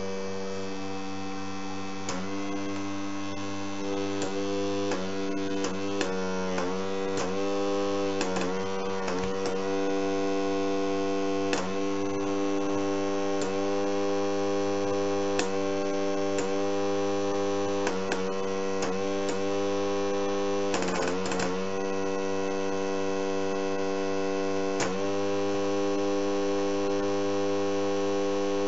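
Small electric air compressor of a fischertechnik pneumatic system running with a steady hum. Sharp clicks come every second or two, and at many of them its pitch briefly sags under changing load as the pneumatic suspension is worked.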